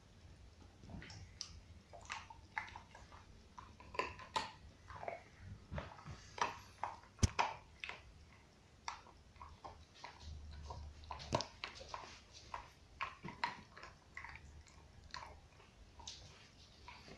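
Dog gnawing on a bone: irregular wet chewing with short crunches and clicks of teeth on bone, one sharper click about seven seconds in.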